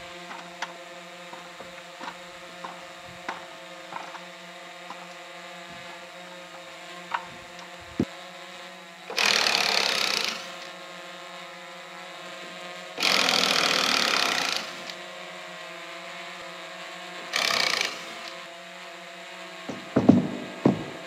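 Power drill boring into a 2x6 wooden board in three loud bursts of one to two seconds each, with a few knocks near the end.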